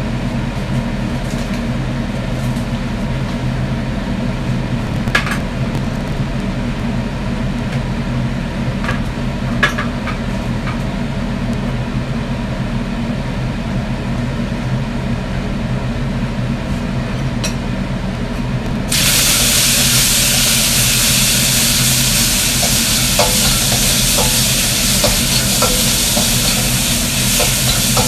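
Stir-frying in a wok: a steady low hum with occasional sharp clicks of the spatula against the pan. About two-thirds of the way through, a loud sizzling hiss starts suddenly and keeps going, with light scraping clicks in it.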